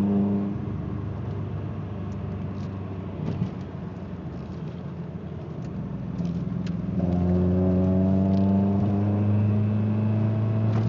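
Ford Escort ZX2's four-cylinder engine running while driving, heard from inside the car, with the misfire the owner calls 'pop, pop, pop'. About seven seconds in the engine gets louder and settles into a clear, slightly rising drone, as when accelerating.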